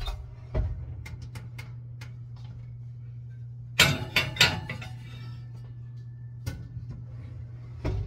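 Metal muffin pan set down on an oven's wire rack, a loud clatter of metal clinks about four seconds in, with a few separate clicks and knocks before and after it, over a steady low hum.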